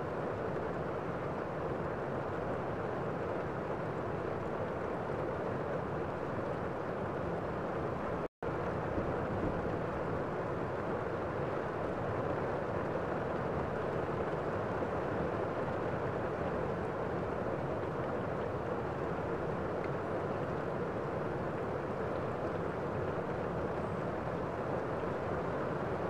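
Waterfall cascading over rocks into a pool: a steady rush of falling water that cuts out for an instant about eight seconds in.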